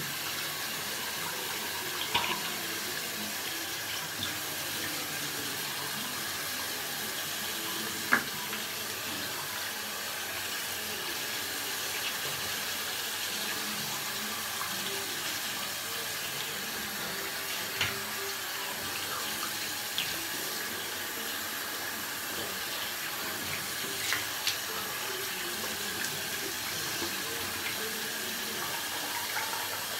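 Water running steadily from a bathroom sink tap, with a few short knocks now and then, the loudest about eight seconds in.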